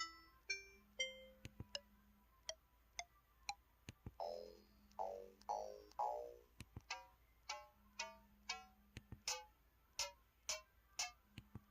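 Keypad button tones of a KTF-X3500 mobile phone: a run of short electronic beeps at changing pitches, about two a second, with a few falling sweeps in the middle.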